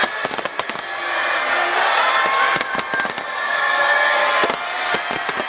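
Fireworks going off: many sharp bangs and crackles in quick, irregular succession over a continuous wash of sound.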